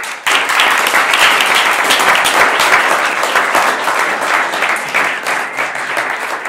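Audience applauding: many hands clapping at once, starting suddenly and slowly dying down.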